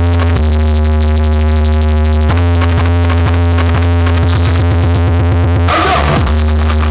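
Electronic speaker-check track played loud through a DJ sound system of RCF speaker boxes. A deep, sustained bass and synth chords run under a drum roll that speeds up, and a sweep about six seconds in leads back into the beat.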